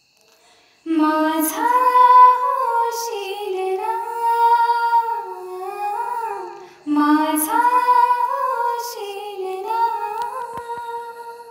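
A female voice singing a slow, gliding melody in two long phrases, the first beginning about a second in and the second about seven seconds in.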